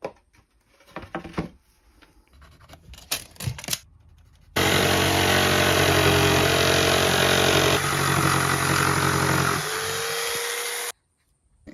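A few handling knocks, then a handheld power tool runs steadily for about six seconds and cuts off abruptly.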